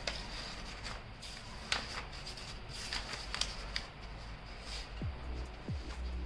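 Large paper sheets being turned and leafed through by hand: irregular rustling and crackling, with sharper flaps as each page is flipped over.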